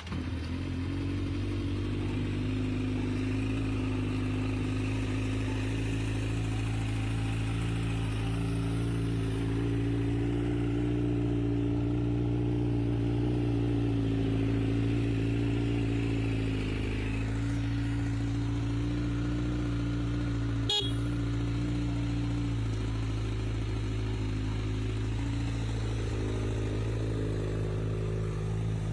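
2015 Honda CBR1000RR's inline-four engine with a Yoshimura exhaust, idling steadily.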